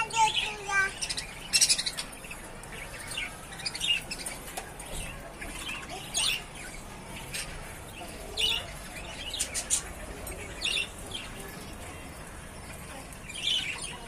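Budgerigars chirping: a quick warble at the start, then short, high chirps every second or two.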